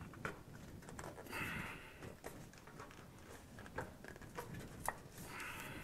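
Faint clicks and scrapes of DuraBlack single-wall black steel stove pipe sections being handled and pushed together by hand, with two heavy breaths out, one about a second and a half in and one near the end.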